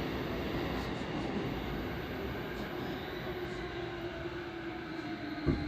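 Running noise inside an E233-7000 series electric train car: rumble of the wheels on the rails and a motor whine that slowly falls in pitch as the train slows. A single sharp knock comes near the end.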